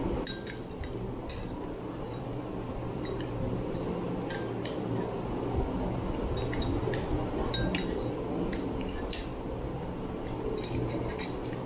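Metal spoons clinking and scraping against small glass bowls, a dozen or so short clinks at irregular intervals, over the steady hum of an electric fan.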